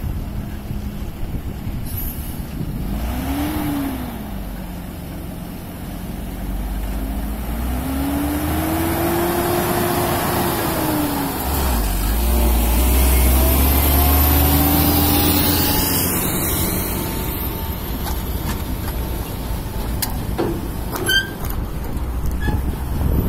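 Tata Prima heavy truck's diesel engine running with a low rumble, revving up and falling back several times. A couple of sharp clicks sound near the end.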